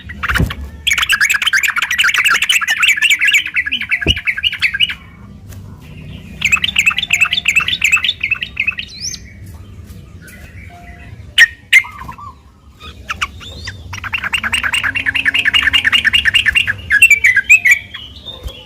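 Yellow-vented bulbul (trucuk) calling in three long, fast chattering runs of rapid repeated notes, the 'ropel' style prized by keepers. A few sharp clicks fall between the runs.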